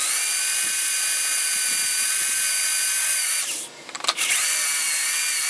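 Electric drill running with a 9/32-inch bit boring into a hardened steel shaft: a steady high motor whine that stops briefly about three and a half seconds in, then starts again.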